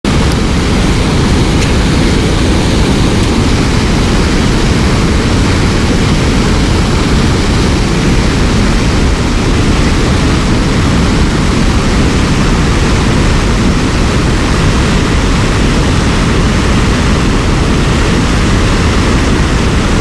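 Loud, steady rushing of water pouring over a low dam spillway into a river, an even noise that never lets up.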